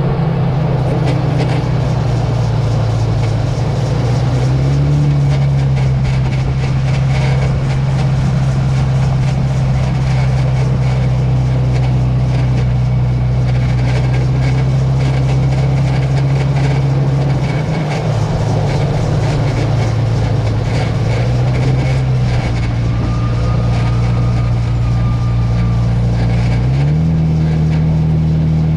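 Jeep Wrangler JK driving: a steady low drone from the drivetrain and road that steps up and down in pitch several times. A faint thin high-pitched squeal sounds for a few seconds about 23 seconds in.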